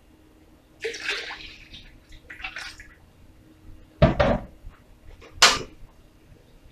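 Kitchen handling sounds: two brief splashing rushes of water, then two loud knocks about four and five and a half seconds in.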